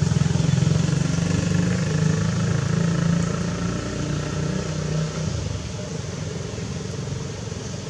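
A motor vehicle engine running steadily, its low hum fading out about five seconds in.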